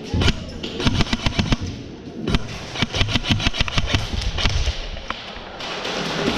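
Airsoft guns firing rapid runs of shots as a round opens, with sharp cracks of BBs and guns in quick succession, then a steady rushing noise near the end.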